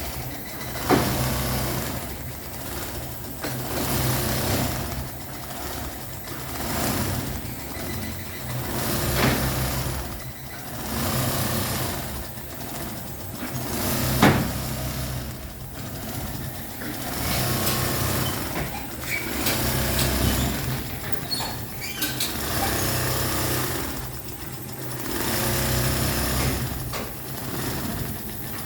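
Industrial sewing machine stitching upholstery fabric in runs, its motor speeding up and easing off every two to three seconds over a steady hum, with a couple of sharp clicks.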